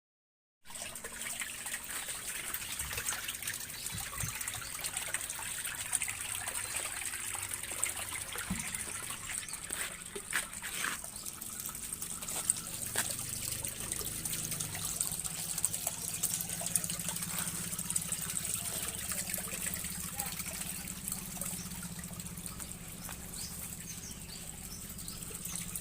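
Water trickling steadily through a homemade ice-cube machine built from an air-conditioner outdoor unit, over a low steady machine hum; it starts abruptly just under a second in.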